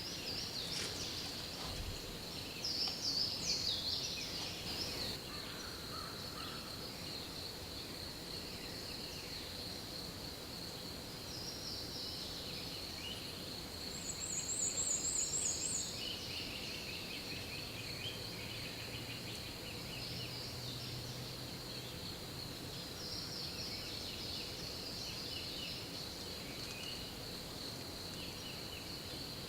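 Songbirds singing in a spring woodland dawn chorus, with a louder, fast high trill about halfway through, over a steady high-pitched tone.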